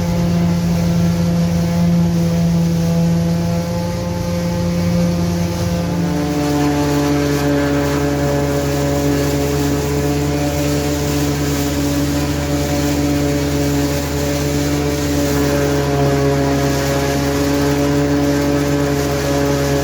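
Diesel engine of corn-chopping machinery running steadily under load. About six seconds in its pitch drops a little, and it runs on evenly at the lower speed.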